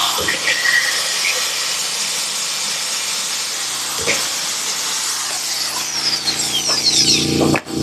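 Air-powered tool grinding and chipping rust off a car body's steel. It runs steadily with a few sharp knocks, and its whine falls in pitch near the end as it slows.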